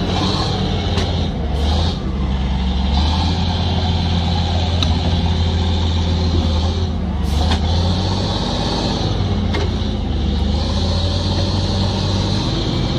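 Heavy diesel engine running steadily with a deep drone that swells and eases a few times, with a few faint clicks over it.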